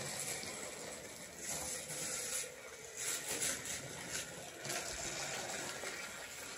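Battery-powered light-up toy race cars running along a flexible plastic Magic Tracks track: a small electric motor whirring with a rattly hiss that swells a few times.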